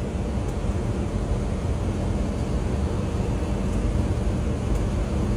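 Steady noise of a jet airliner on final approach: an even, deep rush without a distinct engine whine.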